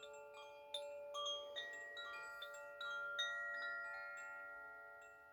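Koshi chimes tinkling: the inner clapper strikes the tuned rods in scattered, irregular strokes, and several tones ring on and overlap, fading slowly between fresh strikes.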